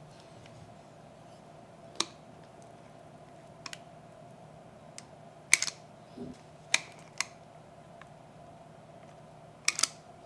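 A spoon clicks and taps sharply against the bowl and pan as thick carrot cake batter is scooped and dolloped, with a few clicks in quick pairs and a softer plop of batter in between, over a faint steady hum.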